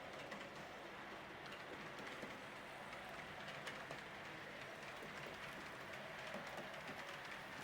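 H0 model train running on the layout's track: a faint, steady rolling noise with many small ticks.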